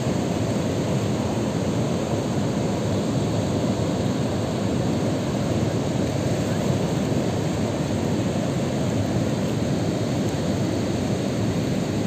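Water overflowing a long dam spillway and falling into the river below: a steady, deep rushing.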